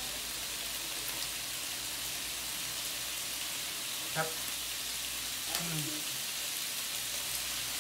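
Sliced meat and fish cake sizzling steadily on a tabletop grill plate, fat spattering in a continuous hiss. Short closed-mouth 'mm' hums about four seconds in and again near six seconds.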